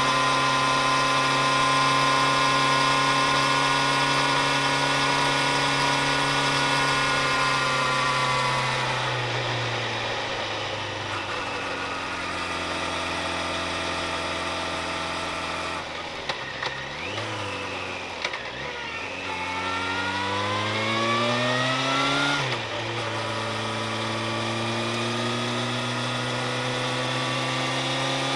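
Vehicle engine heard from on board, running at a steady speed, then easing off under halfway through. Later the engine note rises steadily and drops abruptly at a gear change, then settles back to a steady note.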